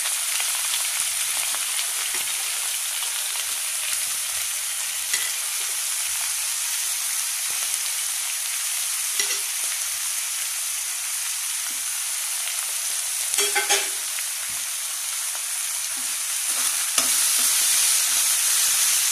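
Chopped onions sizzling in hot oil in a kadai as they are sautéed for a tempering, with a slotted spoon stirring and clinking against the pan a few times. Near the end another batch of chopped onions is tipped in and the sizzle gets louder.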